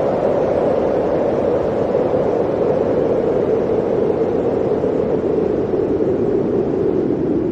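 Blizzard wind blowing steadily, a dense rushing with a low howl that sinks slowly in pitch.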